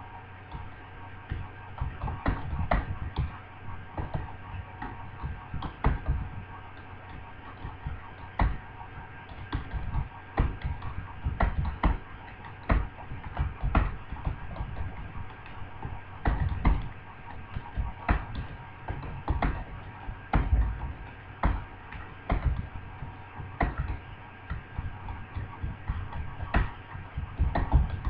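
Computer keyboard being typed on continuously, with uneven key clicks several a second, at about 46 words per minute.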